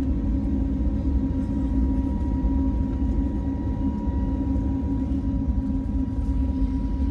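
Airbus A320 cabin noise in flight: the steady rumble of the jet engines and rushing air heard from a window seat as the airliner climbs after takeoff, with a steady hum and a thin high whine that strengthens about a second in.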